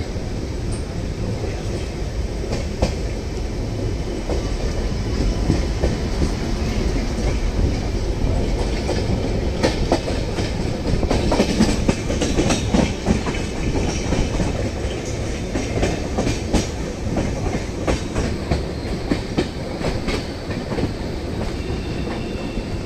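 Passenger train's wheels rumbling and clattering over rail joints and points as the train runs out through the station yard, heard from on board. The clacks are irregular and come thickest about halfway through.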